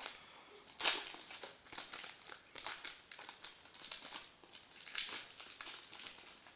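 Trading-card pack wrapper crinkling and crackling as it is torn open by hand, in an irregular run of rustles, loudest about a second in.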